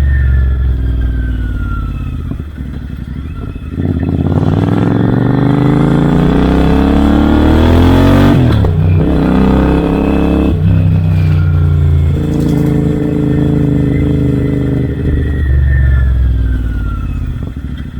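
Royal Enfield Interceptor 650's 648 cc parallel-twin engine through Red Rooster Performance aftermarket exhausts, accelerating on the move. Its pitch climbs for about four seconds, drops sharply, rises again and steps down twice more, as with gear changes, then holds steady.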